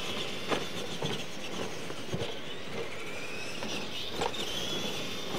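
Radio-controlled Clod-style monster trucks running on a dirt track, their electric motors and gears giving a faint whine that rises and falls with throttle, with a few sharp knocks as the trucks hit and land off the ramps.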